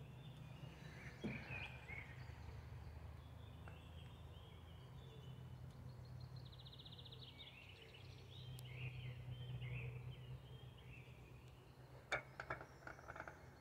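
Faint outdoor ambience: a steady low rumble with birds chirping, including a quick even trill about six seconds in. Near the end comes a short cluster of sharp clicks and knocks.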